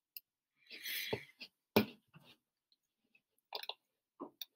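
A few faint, scattered computer-mouse clicks, with a short soft breath about a second in.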